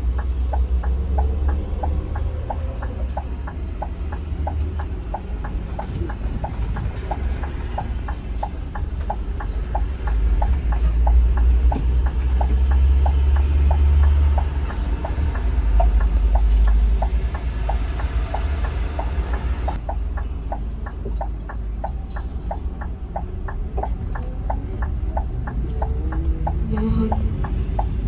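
Coach turn-signal relay ticking steadily, about three clicks a second, over the low rumble of the Scania K360iB diesel engine. The bus is signalling as it slows to turn off the road.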